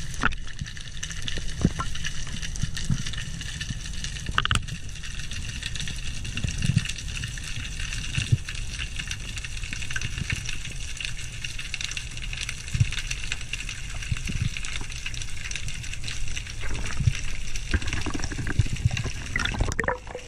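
Underwater ambience picked up by a camera in its housing: a steady low rumble of moving water with soft thumps, a constant high hiss, and a few sharp clicks, the loudest about four and a half seconds in.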